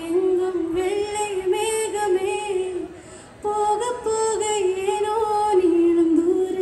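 A woman singing into a microphone, one voice carrying a slow melody of held notes, with a short break about three seconds in.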